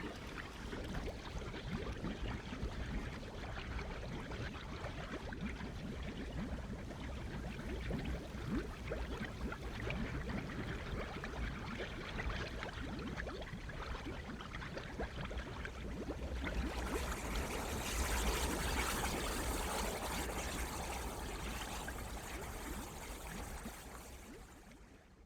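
Mud fumarole bubbling and popping continuously, thick mud gurgling with many small bursts. About two thirds of the way through, a loud steam hiss rises over the bubbling, then the whole sound fades out near the end.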